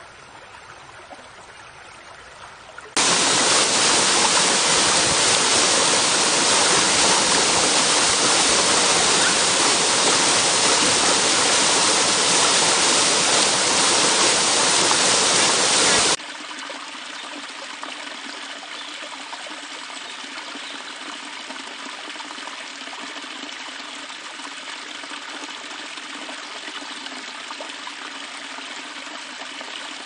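Running water in spliced clips: a creek flowing softly, then about three seconds in an abrupt cut to a much louder, even rush of water. Near the middle that rush cuts off sharply to a moderate, steady splashing flow without the deep rumble.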